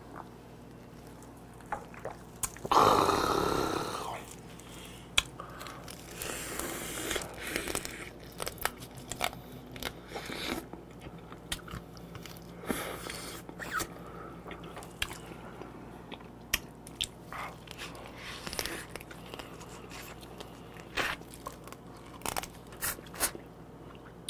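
Close-up eating sounds: biting, crunching and sucking on the shell and legs of raw soy-marinated swimming crab (ganjang gejang), with many short sharp cracks and wet chewing. About three seconds in there is one loud breathy exhale.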